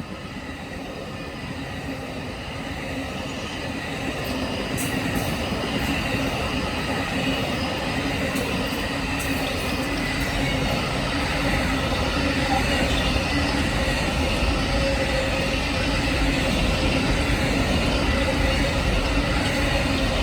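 Diesel-hauled trains rolling past on the rails: a steady rumble of wheels, railcars and locomotives that grows louder throughout, with a few brief high wheel squeals in the first half.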